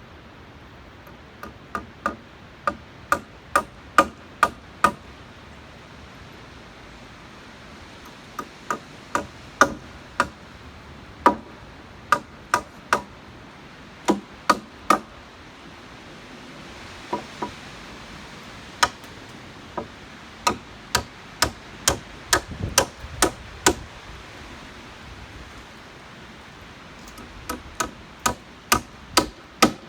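Hammer driving spikes into wooden rafters: sharp blows at about two a second, in runs of several strikes separated by short pauses.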